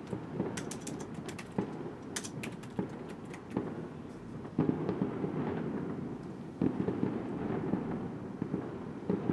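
Firecrackers going off: an irregular series of sharp bangs, with the strongest about four and a half and six and a half seconds in, each followed by a spell of crackling. Computer keys click underneath.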